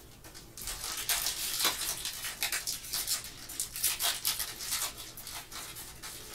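Crackling and crinkling of a foil trading-card pack wrapper being torn open and handled. It starts about half a second in and keeps going as irregular sharp crackles.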